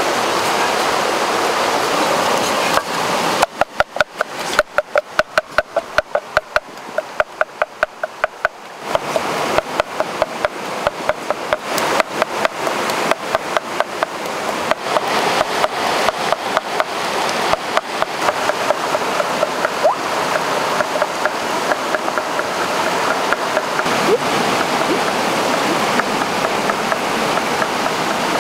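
A stream running steadily over rocks. From about three seconds in, a pestle pounds rhythmically in a small mortar, about four sharp strikes a second, each with a short ringing tone. Later the water returns over it with fainter rapid clicks.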